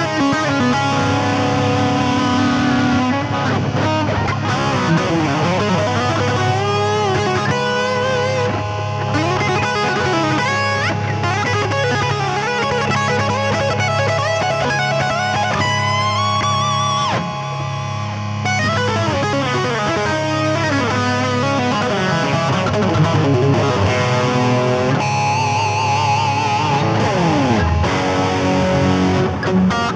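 Electric guitar played lead, with string bends and vibrato, over a steady held chord drone sustained by an Electro-Harmonix Freeze sound-retainer pedal.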